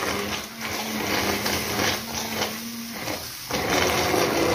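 Hand-held immersion blender running in a pan, churning fried onion, garlic and yogurt into a smooth masala paste; a steady motor hum under a wet churning noise that swells and dips.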